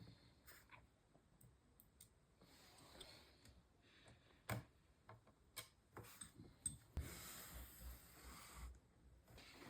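Faint, scattered clicks and light handling noises of small computer parts being fitted by hand, with one sharper click about four and a half seconds in and a soft rubbing hiss from about seven seconds.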